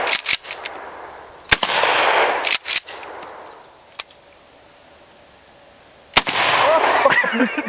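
Two gunshots about four and a half seconds apart, each followed by a long rolling echo, with a few sharp clicks in between. A whooping voice comes in near the end.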